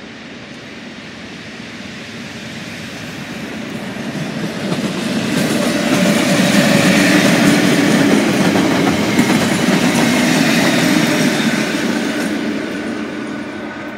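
Two coupled Class 56 diesel-electric locomotives passing close by, their Ruston-Paxman V16 engines running over the noise of wheels on the rails. The sound grows louder over the first half as they approach, is loudest as they pass, and fades near the end as they move away.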